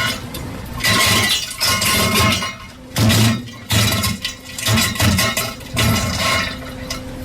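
Bass-boosted, distorted diarrhea sound effect, chopped into an irregular string of loud, harsh bursts with heavy low end.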